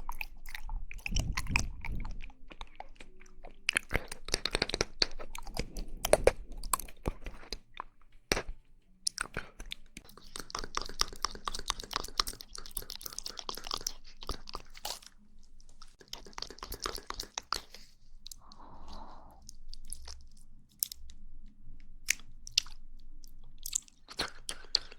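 Close-miked mouth sounds of chewing jelly: a dense stream of wet clicks and smacks, with stretches of hissy, wetter squelching in the middle.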